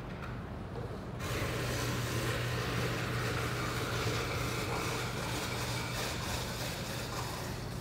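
Steady machine noise with a low hum, starting abruptly about a second in.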